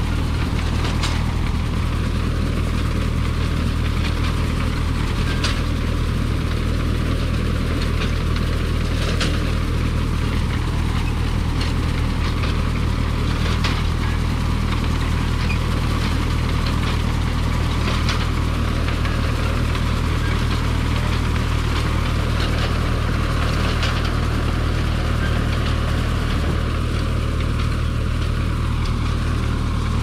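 Tractor engine running steadily as it pulls a McCormick-Deering grain binder cutting wheat, with the binder's mechanism rattling over it and a sharp click every four to five seconds.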